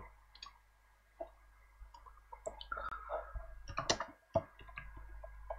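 Computer keyboard keys clicking in scattered keystrokes as terminal commands are typed, busier about two-thirds of the way through.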